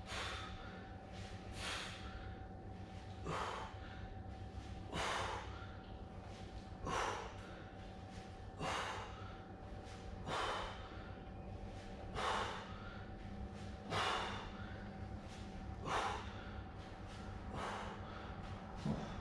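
A man's forceful exhalations, one about every 1.8 seconds and about ten in all, in time with the reps of a single-arm dumbbell push press.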